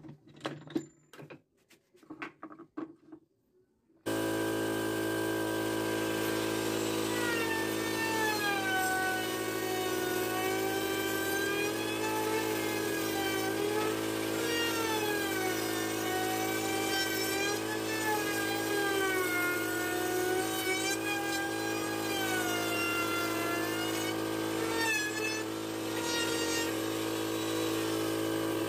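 A few light knocks and clicks, then, about four seconds in, a Makita trim router comes in loud and runs steadily while routing the edge of a wooden panel. Its high whine wavers up and down in pitch as it cuts.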